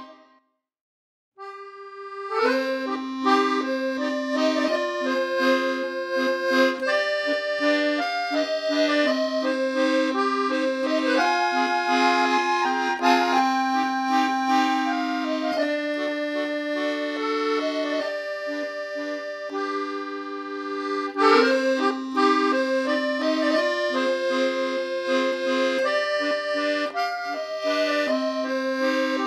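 Background music: a lively accordion melody over a steady bass line. It drops out for about a second near the start, then starts up again.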